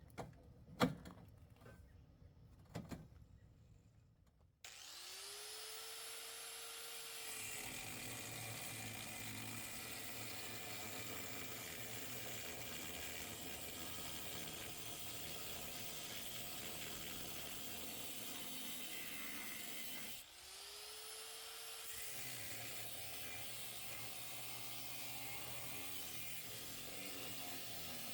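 Handheld electric saw cutting rusted truck rocker-panel sheet metal. A few knocks come first, then the motor spins up with a rising whine and runs steadily. It stops briefly about two-thirds of the way through and spins up again.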